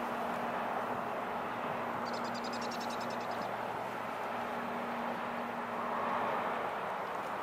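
Steady outdoor machine drone and rumble of a port, with a low hum held under it. About two seconds in comes a rapid high trill of about a dozen notes lasting just over a second, like a small bird's.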